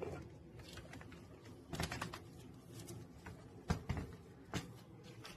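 Handling noises: a few scattered clicks and knocks, as of objects being picked up and moved, over a low steady room hum.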